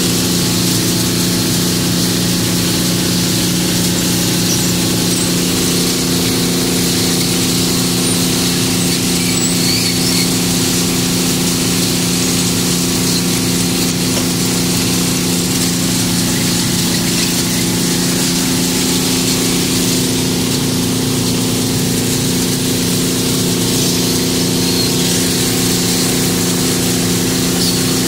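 Hydraulic clam dredge machinery running steadily: an even machine hum with several steady tones under a constant hiss, while the mesh conveyor carries clams and shell up from the bottom.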